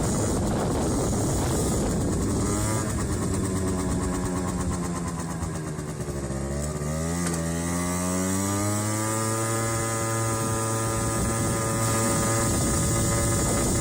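Aprilia SR50 scooter's 50 cc two-stroke Morini engine on the move, with heavy wind on the microphone. Its pitch drops as it slows about halfway through, then climbs as it accelerates and holds steady. The exhaust is leaking.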